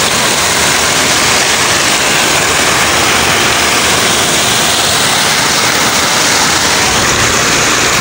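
Muddy water pouring over a low concrete ledge into foaming water: a loud, steady rush.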